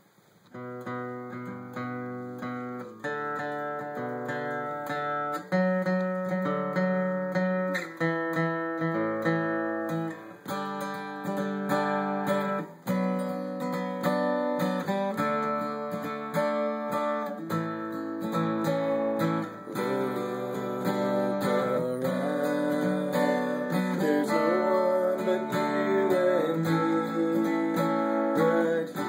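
Acoustic guitar playing the instrumental intro to a song, chords changing every second or two, starting about half a second in.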